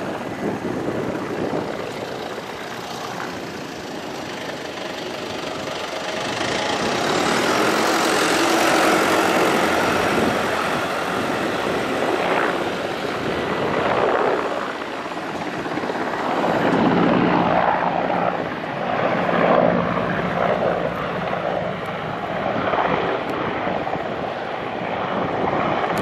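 Aircraft flying low overhead: a continuous drone of engine noise that builds over the first several seconds, then rises and falls in loudness.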